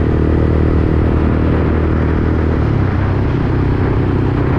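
Motorcycle engine running steadily under way, with a steady rushing road noise over it; the engine note shifts about two and a half seconds in.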